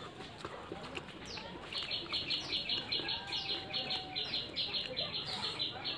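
Birds chirping: a fast, steady run of high chirps, about six a second, starts about two seconds in, with a few short falling chirps over it.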